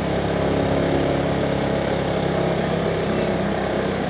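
A vehicle engine running steadily, a continuous low drone with road and traffic noise over it.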